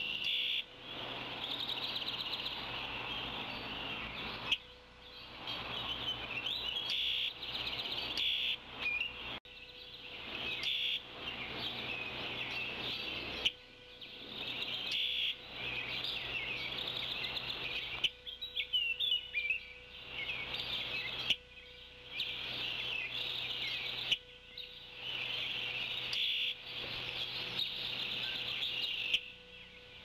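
Small birds singing in the woods: a high, twittering song in repeated bouts of a few seconds each, with short breaks between, over a faint steady hum.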